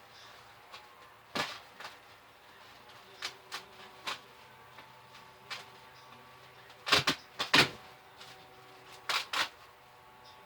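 Coal being loaded into a metal coal pan: scattered knocks and clatters of lumps and the pan being handled, with louder clusters of clunks about seven and nine seconds in.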